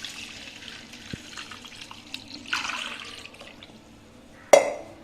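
Water being poured into a cooking pot, splashing for about three seconds, then a single sharp knock near the end.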